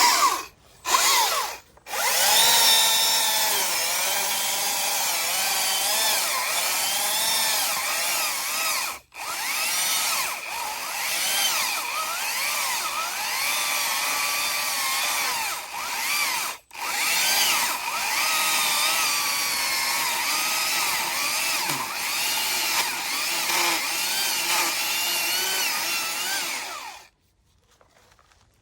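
Stihl MSA 300 battery chainsaw: a few short blips of the trigger, then the electric motor and chain whining almost without a break as it cuts into the tree, its pitch wavering under load. It stops briefly twice and cuts off near the end.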